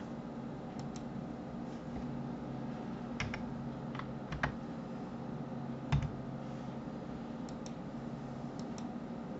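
Computer keyboard keys and mouse buttons clicking, a dozen or so separate clicks scattered irregularly, the loudest about four and a half and six seconds in, over a steady low hum.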